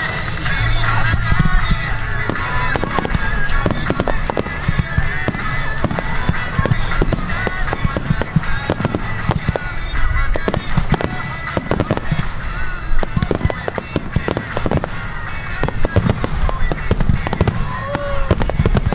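Firework shells bursting in quick, continuous succession over music played for a synchronized fireworks display.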